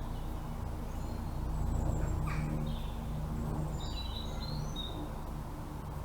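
A few bird calls: a short call falling in pitch about two seconds in, then a cluster of high chirps around four seconds in, over a steady low hum.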